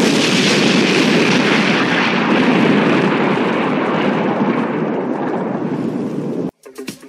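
Explosion sound effect with a long rumbling fade, laid over a basketball shattering in an animated intro. It cuts off suddenly near the end, and a song's beat starts.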